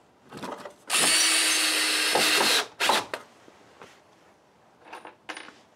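Cordless drill driving a screw into a wooden support, running steadily for about two seconds and then stopping. A few short knocks from handling come before and after it.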